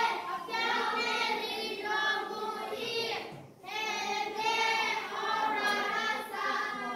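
A group of young children singing together, with a brief break about halfway through.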